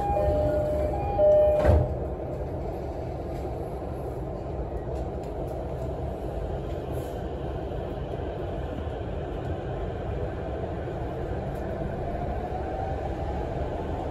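JR E231-series commuter train pulling out of a station. A two-tone chime sounds in the first two seconds and ends with a thump as the doors shut. Then comes the steady rumble of the train getting under way, with the motor whine rising in pitch near the end as it accelerates.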